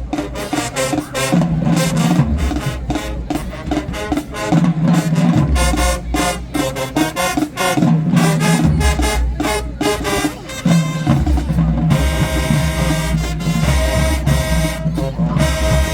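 High school marching band playing: drums keeping a steady beat under held low brass notes. The sound grows fuller about twelve seconds in.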